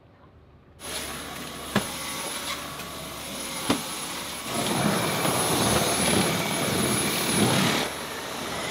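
Cordless stick vacuum cleaner running, with a steady high motor whine, as it is pushed over floor mats and a rug. It switches on about a second in and gets louder about halfway through, with two sharp clicks along the way.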